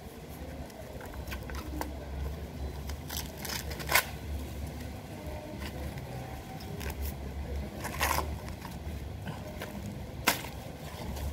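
Light clicks and knocks from handling things while cooking corn: one sharp knock about four seconds in, a slightly longer one near eight seconds and another about ten seconds in, over a low steady hum.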